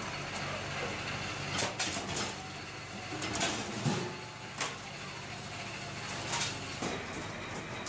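Steady hum of workshop machinery with scattered sharp metallic clanks and scrapes from a stack of aluminium sheet discs being rolled and handled.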